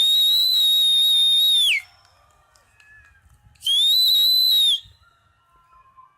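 Two loud, shrill whistles, each holding one high pitch. The first lasts nearly two seconds and drops away at the end; the second comes about two seconds later, is shorter, and rises in and falls off.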